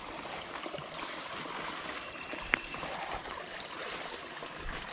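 Creek water running steadily, with one sharp snap about two and a half seconds in.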